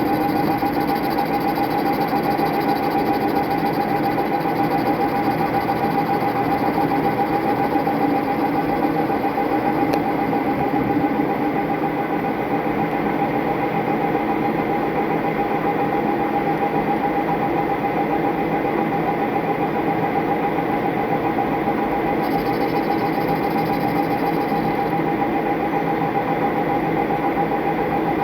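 Metal lathe running steadily, its motor and drive giving a constant high whine over a dense mechanical hum.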